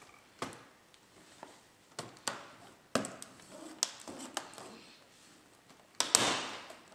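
HP Pavilion laptop's plastic case clicking and knocking as it is opened and its palm rest pressed into place. A string of sharp clicks ends about six seconds in with the loudest snap and a short rattle that dies away.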